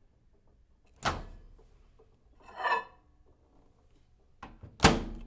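Microwave oven door handling after the cycle ends: a sharp click-thunk as the door is released, a brief rattle a second and a half later, then a light click and a loud thunk as the door is shut near the end.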